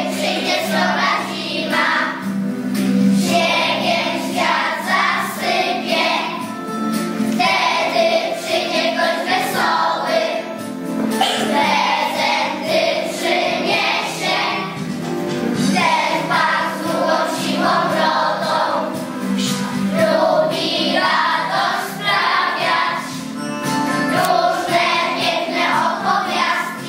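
A group of young children singing a song together in chorus, with steady musical accompaniment beneath, the singing going on without a break.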